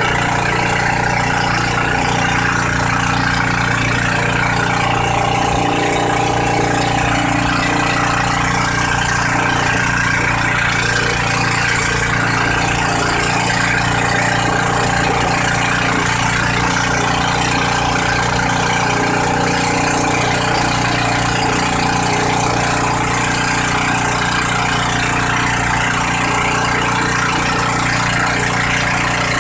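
Engine of a motorized outrigger boat running steadily at a constant speed, with the rush of water and wind against the moving hull.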